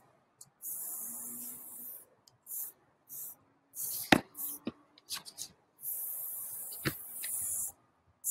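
Aerosol spray paint can hissing in bursts against a mural surface: a long spray about a second in, a run of short spurts, then another long spray of about two seconds near the end. Two sharp clicks cut through, the first and loudest about four seconds in.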